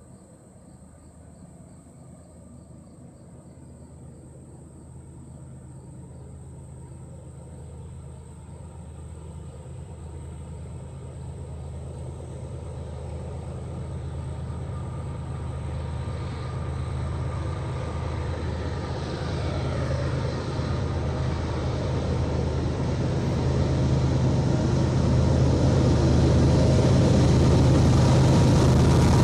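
Diesel locomotives of an approaching freight train, a GE ES44AH leading an EMD SD70MAC, running under power. Their low engine drone grows steadily louder as the train closes in.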